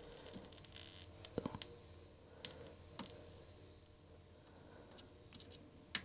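A few faint clicks and taps of two soldering iron tips working a surface-mount electrolytic capacitor off a circuit board, the sharpest about three seconds in.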